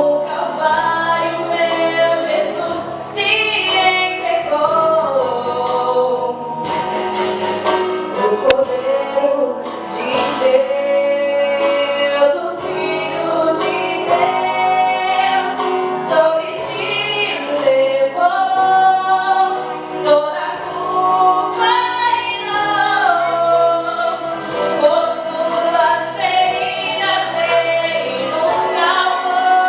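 Christian song: singing voices, a woman's voice most prominent, over instrumental accompaniment.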